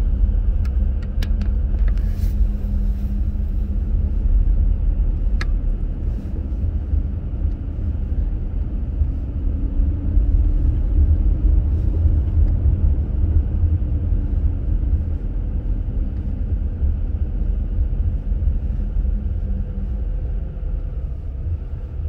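Road noise heard inside a Subaru Crosstrek's cabin while driving: a steady low rumble of Blizzak winter tyres on a snow-packed road, with the engine running underneath. A few faint clicks sound in the first six seconds.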